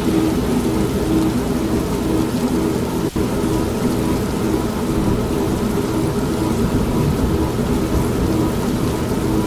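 An old manual washing machine running with a steady hum, mixed with heavy rain and rumbling thunder. There is a brief drop-out about three seconds in.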